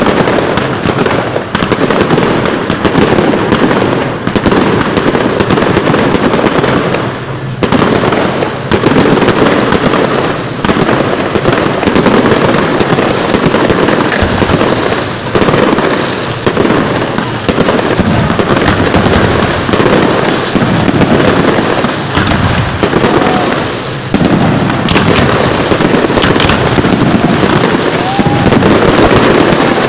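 A dense, loud fireworks barrage: rapid overlapping bangs and crackling from aerial shells and rising comets, with hardly a gap, easing only briefly about seven seconds in.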